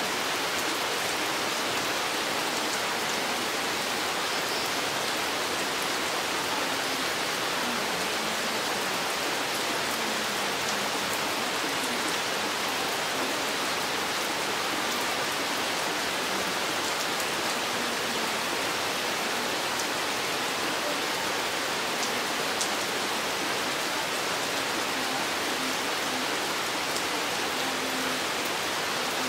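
Steady rain falling in a forest: an even, unbroken hiss, with a few faint separate drop ticks.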